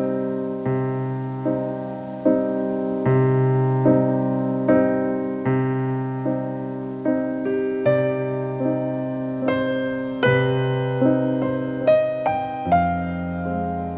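Slow solo piano background music: a soft chord or note struck about every 0.8 seconds and left to ring, with a lower bass note coming in near the end.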